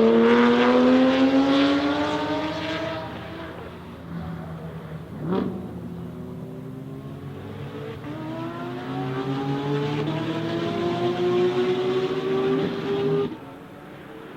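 Porsche 992 GT3 RS flat-six with a SOUL exhaust accelerating hard, its revs climbing and then fading away. There is a single sharp pop about five seconds in. A second long pull follows, rising through the gears and loudening, and it cuts off abruptly about thirteen seconds in.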